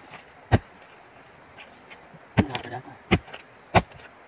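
Hand-held metal digging tool chopping into root-filled soil: four sharp strikes, one about half a second in and three more close together in the second half, working to cut through tree roots.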